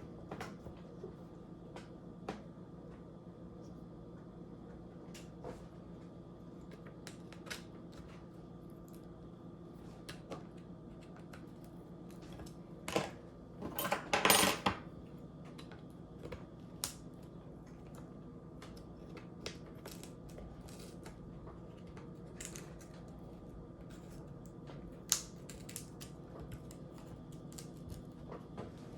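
Small sharp clicks and taps of hand tools and small parts being handled while a MacBook Pro is taken apart, with a louder clattering rattle a little before halfway, over a steady low hum.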